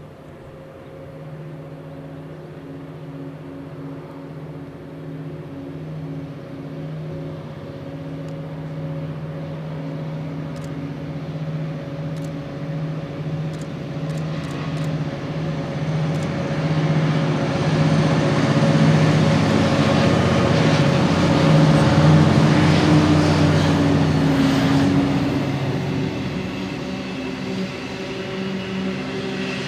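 Three NSW 82 class diesel-electric locomotives hauling a loaded coal train under load, their engines giving a steady drone. It grows louder as they approach, peaks about two-thirds of the way through as they pass, then eases as the loaded coal wagons roll by.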